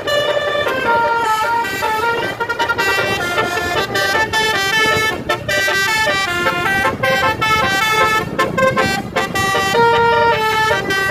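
A bus's telolet basuri air horn playing a melody: several horn tones sounding together and stepping from note to note every fraction of a second, without a break.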